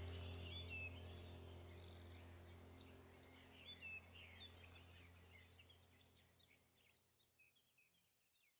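Birds chirping over a low steady hum, the whole track fading out to silence near the end.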